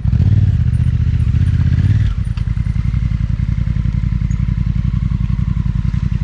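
Motorcycle engine idling with a steady, rapid beat, louder for about the first two seconds and then settling a little lower.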